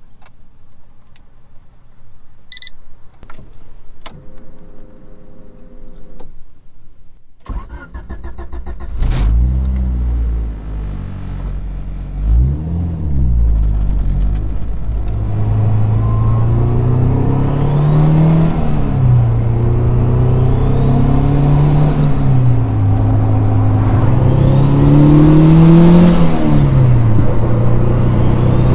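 Turbocharged Honda B16 1.6-litre VTEC four-cylinder in a Civic EG6 with a GT3076 turbo: after a few clicks and knocks, the engine starts about seven seconds in. It is then revved up and drops back several times, about every four seconds, each climb carrying a rising turbo whistle.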